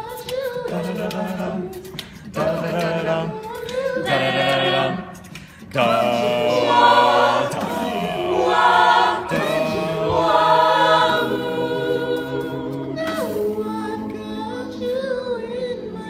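Mixed-voice a cappella ensemble singing sustained chords over a sung bass line, with no instruments, in phrases that break briefly every few seconds.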